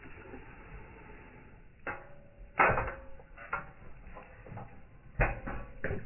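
Hollow plastic knocks from a dog's paw pressing the pedal of a step-on dog water fountain, about five in all, several with a short ring, the loudest halfway through.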